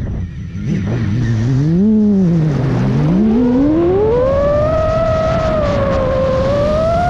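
Chimera 7.5 FPV drone's brushless motors whining, the pitch following the throttle: low and briefly quieter near the start, a short rise and fall about two seconds in, then a steep climb to a high whine that holds with a slight waver.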